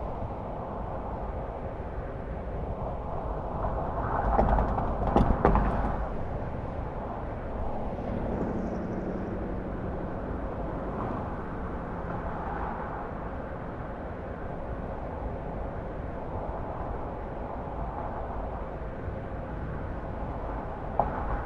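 A car driving at speed, with steady tyre, road and wind noise. About four to six seconds in there is a louder rush with a few knocks.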